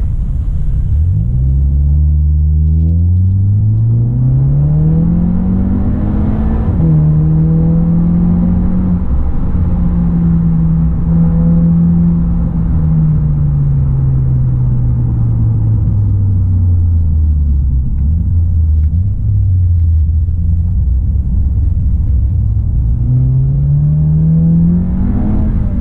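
Skoda Octavia RS245's turbocharged 2.0 TSI four-cylinder through a Milltek and Borla GPF-back exhaust, heard inside the cabin from the rear seat. The revs climb under acceleration, drop suddenly at a gear change about seven seconds in, hold steady, then sink as the car eases off. Near the end they climb again up to another gear change.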